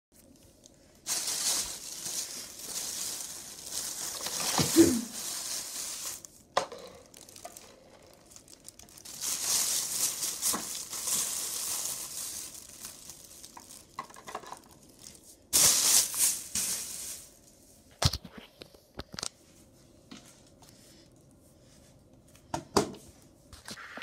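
Plastic mailer bag crinkling and rustling as it is handled and pulled open, in three long stretches, followed by a few sharp clicks and knocks near the end.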